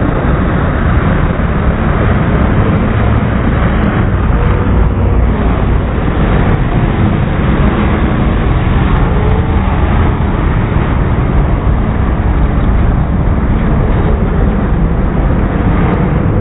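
Dirt late model race cars running at speed together, a loud, steady, dense engine drone.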